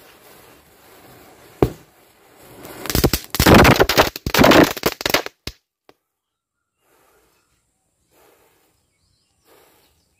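Small Diwali firecracker going off as a burning matchstick chain reaches it. There is a faint fizz, a sharp crack about one and a half seconds in, then about three seconds of loud, dense crackling and hissing that stops suddenly a little past halfway. After that it is near silence.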